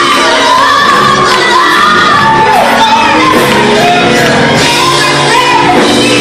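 Church worship music: voices singing a worship song over loud, continuous instrumental accompaniment.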